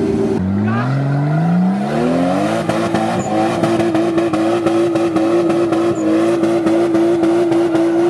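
Off-road 4x4 engine revved up over about two seconds and held at high revs for several seconds, then easing off right at the end, with a rapid clatter of clicks alongside.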